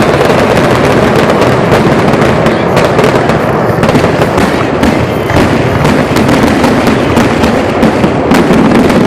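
Fireworks display going off: a dense, continuous run of bangs and crackles, several reports a second.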